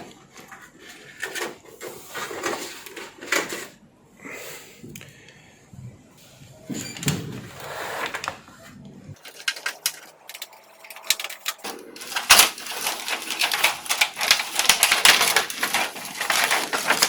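Handling of the plastic inner parts of an LED TV: scattered clicks, taps and short rustles, turning into a dense crackling, crinkling rustle about twelve seconds in.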